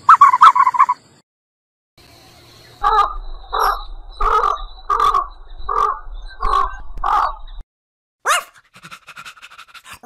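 A bird calling: seven loud, evenly spaced calls, about one every 0.7 seconds, over a low rumble of wind on the microphone. A short run of rapid pulsed calls comes before them in the first second.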